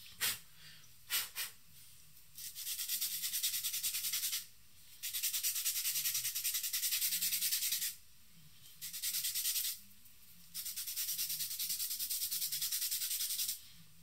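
A paper blending stump is rubbed back and forth on a sandpaper paddle, scraping the charcoal off its tip to clean it. A few single scratches come in the first second or two, then several runs of quick strokes lasting a few seconds each, with short pauses between.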